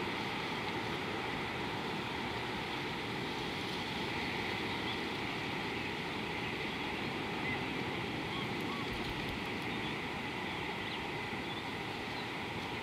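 Steady outdoor ambience: an even hiss throughout, with a few faint short chirps in the middle.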